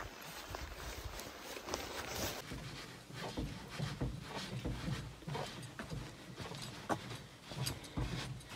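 Footsteps on a portage trail at a steady walking pace, about two steps a second.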